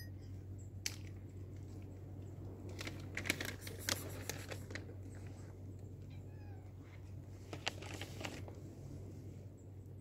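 Footsteps of a person walking on asphalt and concrete, heard as scattered clusters of short clicks and scuffs over a steady low hum, with a couple of faint bird chirps.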